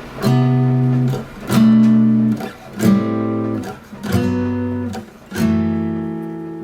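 Background music in an instrumental break: a guitar strums a slow run of five chords, about one every second and a quarter, each left to ring out.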